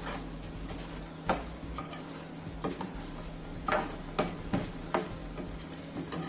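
Chicken being stirred in a cooking pan: a utensil scrapes and knocks against the pan several times, over a steady low hum.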